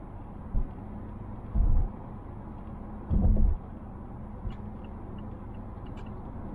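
Steady road and tyre noise inside the cabin of a 2020 Mazda Atenza 2.5L at highway speed, broken by three dull low thumps in the first half. Faint light ticks come near the end.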